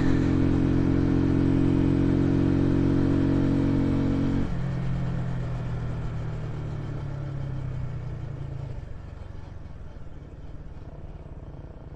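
Dayun Flasher 200 motorcycle engine running at a steady road speed with a rushing hiss of wind, then about four seconds in its note drops away abruptly as the throttle is closed and the bike slows; it grows steadily quieter toward the end.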